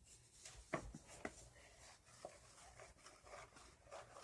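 Faint rubbing and scraping of a utensil stirring slime mixture in a bowl, with two soft clicks about a second in.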